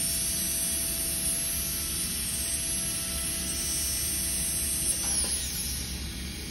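Dental handpiece spinning a bur at steady high speed while it trims the edge of a polycarbonate crown form, a steady whine that winds down and stops about five seconds in.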